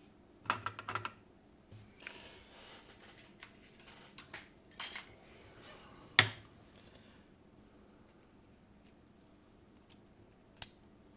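Small metal parts of an Anchor Las disc detainer lock core clicking and clinking as the lock is taken apart by hand. A quick run of clicks comes right at the start, lighter ticking and rattling follows, then one sharp click about six seconds in and another near the end.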